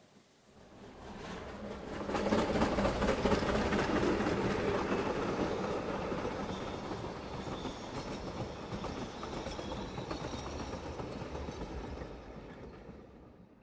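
Narrow-gauge railway carriages rolling past on the track, their wheels clicking over the rail joints. The sound builds about two seconds in and fades away near the end.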